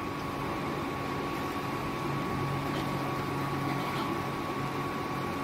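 Steady mechanical hum with a constant high whine over a faint, even hiss, unchanging throughout.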